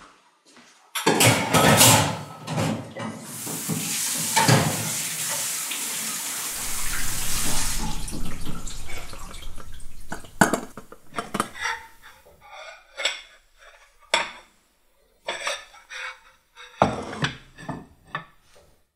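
Kitchen tap running into a sink for several seconds, then, once the water stops, a run of separate clinks and knocks of dishes and cutlery being handled at the sink.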